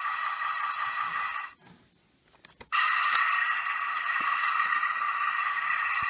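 A Tonka Tanker toy truck's electronic sound effect plays from its small built-in speaker as a steady noisy sound. It cuts off about a second and a half in and starts again after a faint click about a second later, as the button is pressed again.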